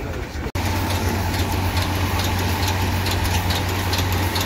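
An engine running steadily with a low hum and a light regular ticking about three times a second. The sound breaks off suddenly for an instant about half a second in.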